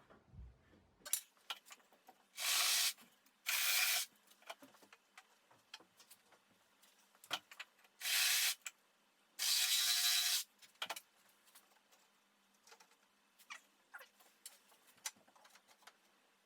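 A hand tool cutting wood, notching a timber bench support: four short strokes in two pairs, the pairs about five seconds apart, with light knocks and clicks of the wood being handled in between.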